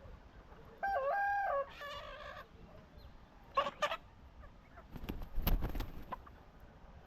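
Sasso F1 chickens calling: a drawn-out call that steps up and down in pitch about a second in, two short sharp squawks midway, then a brief scuffling noise.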